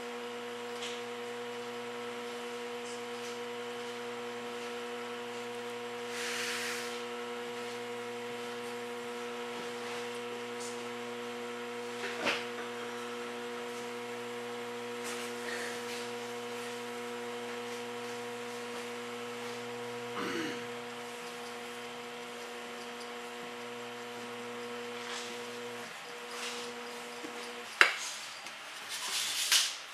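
Electric potter's wheel motor humming steadily, with a few brief rubbing sounds from the work. The hum cuts out a few seconds before the end, and sharp knocks follow.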